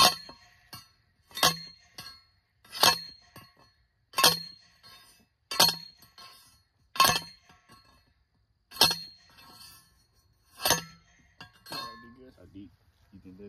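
Manual T-post driver slamming down onto a steel T-post, eight ringing metal clanks about a second and a half apart as the post is driven into the ground.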